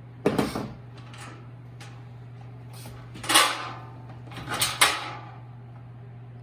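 Four or five short knocks and scrapes of parts being handled, the loudest about three seconds in and just before five seconds, over a steady low electrical hum.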